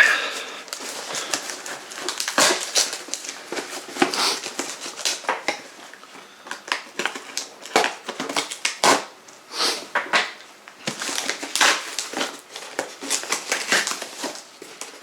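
A cardboard shipping box being cut and torn open by hand: an irregular run of crackling, scraping and tearing of cardboard and packaging.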